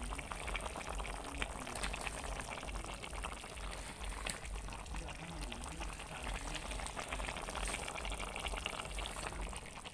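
Fish and cauliflower curry simmering in a pan, with a steady crackle of small popping bubbles over a low rumble.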